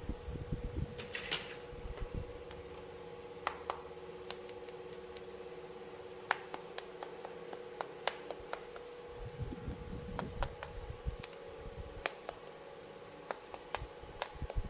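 Plastic toy pieces being handled: scattered sharp clicks and taps with soft low bumps, over a steady hum.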